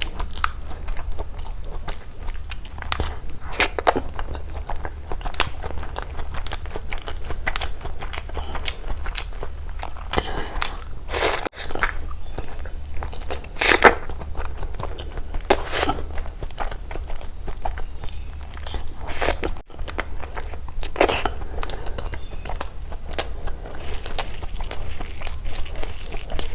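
Close-miked eating: irregular wet chewing with crisp crunches and bites scattered through.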